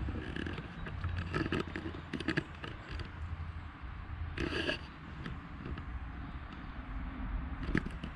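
Footsteps on old wooden floorboards and dry leaf litter, with irregular scuffs and ticks and one louder scrape about halfway through.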